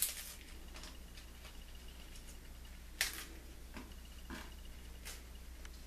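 Raw cabbage leaves being torn and snapped apart by hand: a few crisp snaps and crackles, the two loudest at the start and about three seconds in.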